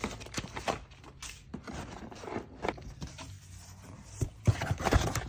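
Cardboard box and packaging being opened and handled: irregular scrapes, rustles and light knocks, busier and louder about four seconds in.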